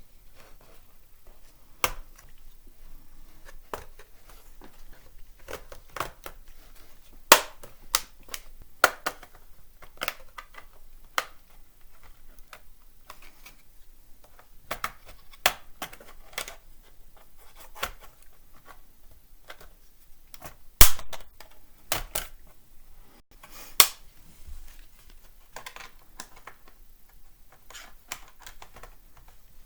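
Plastic snap clips of a laptop's bottom case popping loose one after another as the case is pried open: irregular sharp clicks with a handful of much louder snaps.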